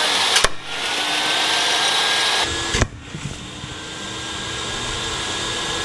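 Table saw running with a steady whine as a dowel is fed into the spinning blade and launched with a sharp crack about half a second in; a second sharp bang comes near the middle, with the saw noise going on after it.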